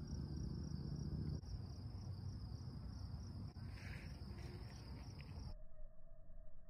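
Crickets chirring in a steady, high continuous trill over low rumbling background noise. Near the end it cuts off abruptly to a lower, steady wavering tone.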